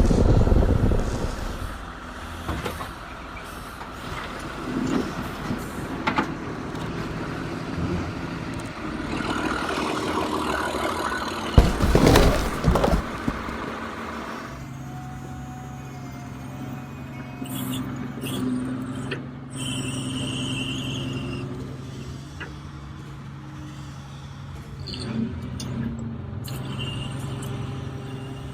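Toy and RC construction machines at work: mechanical whirring, clatter and squeaks, changing to a steady low motor hum about halfway through.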